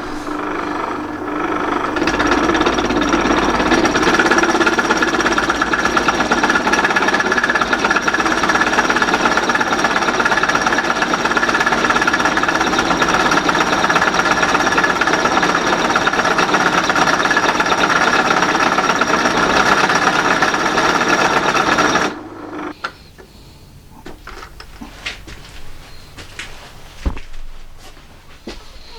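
Metal lathe running with a loud, steady, dense rattle, likely while drilling or tapping the workpiece. It stops suddenly about two-thirds of the way through, and a few light clicks and ticks of handling follow.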